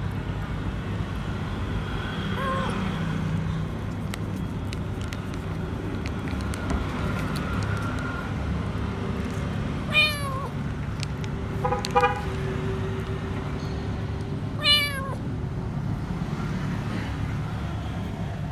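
Hungry stray kitten meowing three times over a steady low hum: a high, slightly falling meow about ten seconds in, a short stuttering one two seconds later, and another falling meow near the end.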